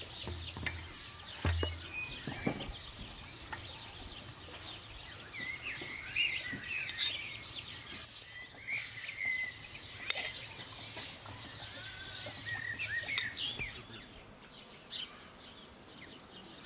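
Small birds chirping and twittering throughout, with scattered sharp clicks and scrapes from a knife and spatula working butter in a stainless steel pot.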